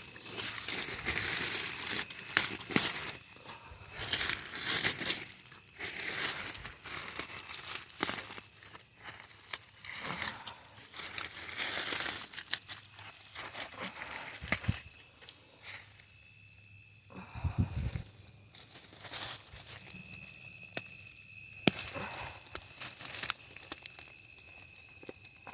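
Leafy weeds and vines rustling and crackling in irregular bursts as they are pulled by hand, with an insect chirping in a steady pulse about twice a second behind them.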